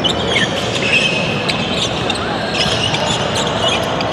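Volleyball play in a gym hall: sneakers squeaking on the court floor and scattered ball hits and knocks, over a steady hall din.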